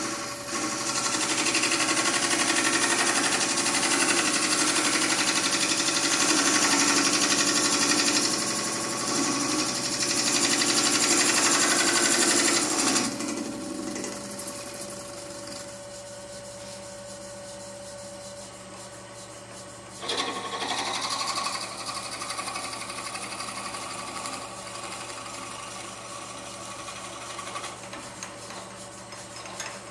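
Turning gouge cutting into wood spinning on a Oneway wood lathe: a loud, steady scraping hiss for about the first thirteen seconds. The lathe then runs on with a quieter hum, and about twenty seconds in a drill bit in a hand-held chuck starts boring into the spinning piece with a rougher cutting sound.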